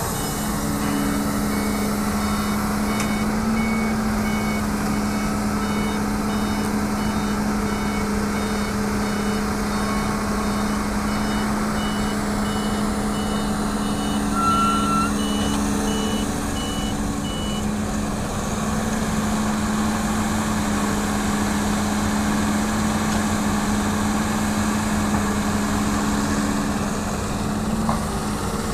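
A Hitachi hydraulic excavator's diesel engine runs steadily as it works. Over it, a dump truck's reversing alarm beeps repeatedly and then stops about two-thirds of the way through.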